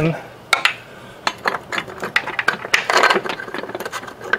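Steel bolts and washers clinking and rattling against a transmission crossmember and mount as they are fitted by hand: irregular small metallic clicks, busiest about three seconds in.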